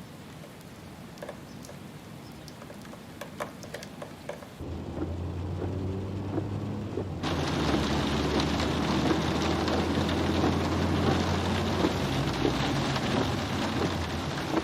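Rain falling: light rain with scattered drips at first, then a low rumble of thunder sets in about four and a half seconds in, and a heavy downpour builds about seven seconds in and stays loud.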